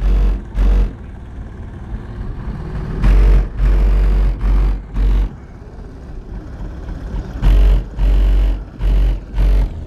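Two Kicker L7 15-inch subwoofers playing a song's bass line at high volume, heard inside the car as deep bass hits in groups of two to four, each about a third to half a second long, with quieter music between the groups.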